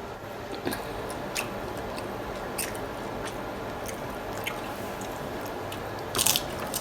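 Close-up chewing of tacos: wet, squishy mouth sounds with scattered sharp crunches, and a louder burst of crunching about six seconds in.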